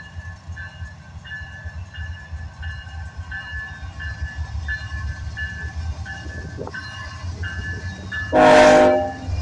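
CSX diesel freight locomotives rumbling past at close range while a bell rings about twice a second, then a short, very loud horn blast near the end.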